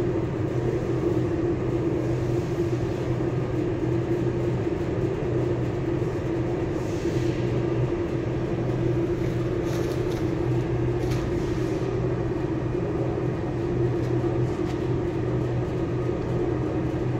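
Motor-driven three-roller aluminium profile bending machine running steadily with a constant hum while it rolls a flat profile into a curve.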